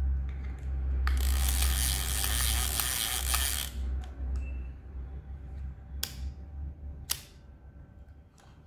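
Yashica Mat 124 camera mechanism worked by hand: a rapid run of ratcheting clicks for about two and a half seconds, then two sharp single clicks about a second apart.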